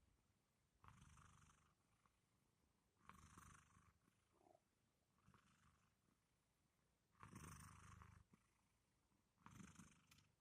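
Domestic cat snoring softly in its sleep: five faint, breathy snores, each under a second long, about two seconds apart.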